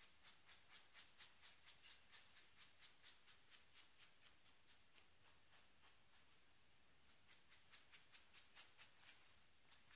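Faint, quick dabbing taps, about four a second, of paint being stippled onto a foam sponge squishy to give it a baked-bread browning. The tapping pauses about five seconds in and starts again about seven seconds in.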